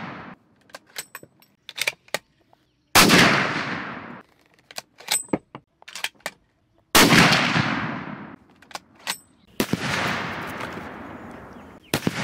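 Heavy .375 H&H Magnum rifle shots, four of them a few seconds apart, each cracking sharply and trailing off in a long echo. Between the first shots, short metallic clicks of the bolt action being worked.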